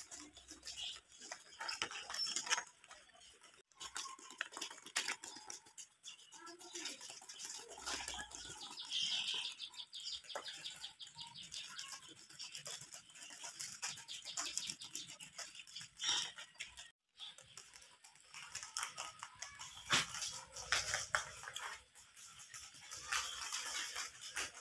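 Domestic rabbits munching fresh green leaves close up: fast, crisp crunching clicks, with a few brief pauses.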